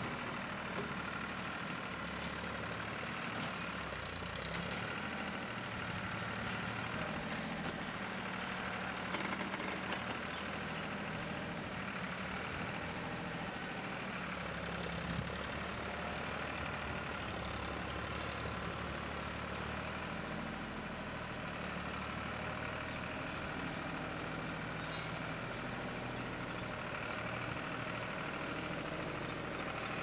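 Diesel tractor engine running while its hydraulic front loader scoops green fodder and lifts it into a mixer wagon. The engine note shifts a few times as the load changes, with a couple of light knocks near the middle.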